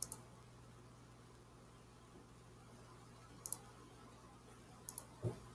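Faint computer mouse clicks: a single click at the start, then quick pairs of clicks about three and a half and five seconds in, over a faint steady low hum. A soft low thump comes just before the end.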